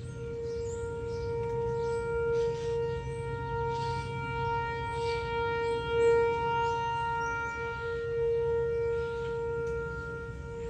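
Whelen 4004 electronic outdoor warning (tornado) siren sounding a steady tone on test, holding one pitch throughout. Its loudness swells and fades, peaking about halfway through and easing off near the end.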